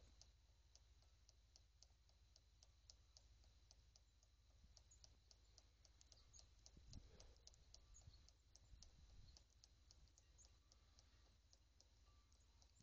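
Near silence, with faint, regular ticking at about three ticks a second and a faint steady high tone.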